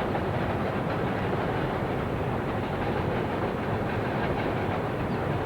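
Steady rumble and rattle of a moving vehicle, with no clear breaks or single events.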